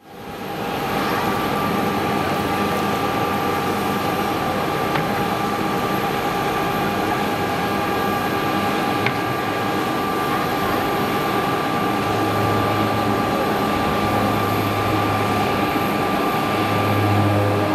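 Partenavia P.68C twin-engine piston aircraft climbing out after takeoff: its two four-cylinder Lycoming engines and propellers at takeoff power make a steady drone. The drone fades in at the start, and a low hum swells in and out in the second half.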